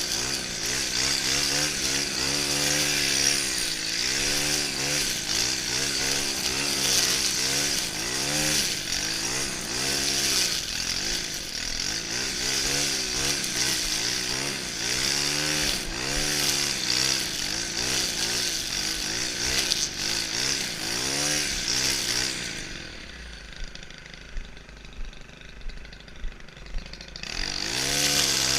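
Stihl FS 131 brushcutter's 36cc engine cutting grass, its revs rising and falling again and again as the throttle is worked. About three quarters of the way through it drops to idle for a few seconds, with a few sharp clicks, then revs back up near the end.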